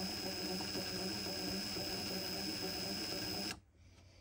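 JSD Hope cordless brushless impact wrench spinning freely at its lowest working speed, about 120 RPM, without hammering: a steady motor hum with a high-pitched whine. It stops about three and a half seconds in.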